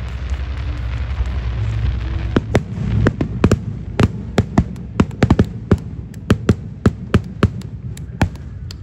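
Aerial fireworks display: a dense crackling hiss over a low rumble, then from about two seconds in a rapid, irregular string of sharp bangs from bursting shells.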